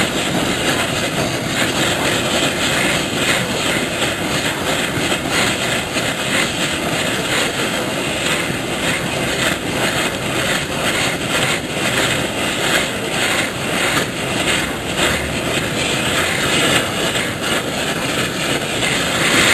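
Oxy-acetylene torch flame burning with a steady rushing noise, heating seized, rusted Torx bolts red hot so they can be broken loose.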